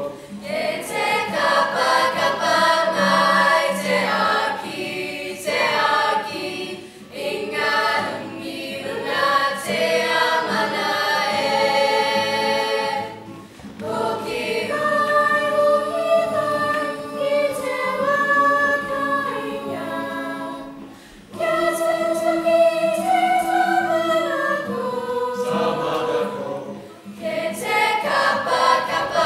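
Mixed school choir of boys and girls singing in harmony, unaccompanied, with two short breaks between phrases about 13 and 21 seconds in.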